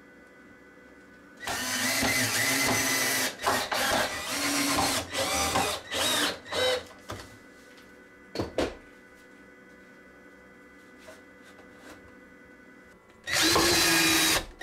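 Cordless drill driving screws into wood in several short stop-start runs, its motor pitch wavering as the screws bite. After a pause, one more steady run near the end drives a screw through a metal corner bracket.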